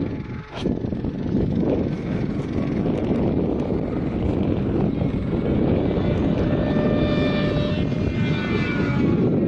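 Large RC model airplane's 200 cc engine driving a Varioprop contra-rotating twin propeller in flight, a steady drone overhead. A higher propeller whine slides down in pitch near the end.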